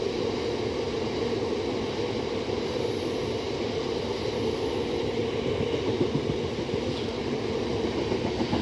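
Train with a Class 66 diesel locomotive on the rear running past, a steady noise of wheels and running gear on the rails.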